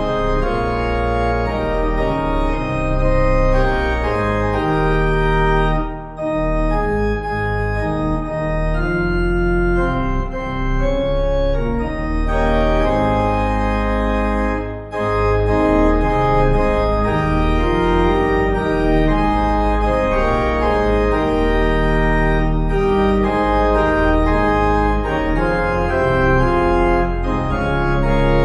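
Organ playing slow, held chords over a deep bass, pausing briefly twice between phrases.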